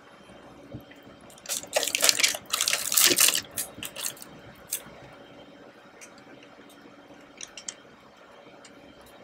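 Close-miked handling of a chocolate mousse cake by hand: about two seconds of loud crackly noise, then a few scattered small clicks.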